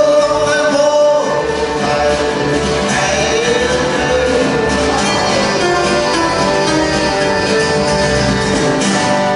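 Live country-western band playing acoustic guitars and accordion, with men singing over them in held, sliding notes.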